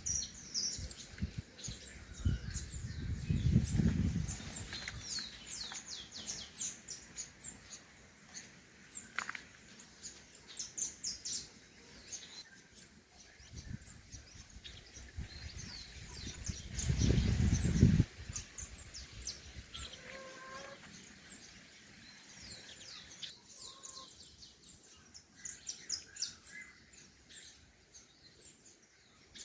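Many small birds chirping and singing, a steady stream of short high calls. It is broken twice by a burst of low rumbling noise, about three seconds in and more loudly around seventeen seconds in.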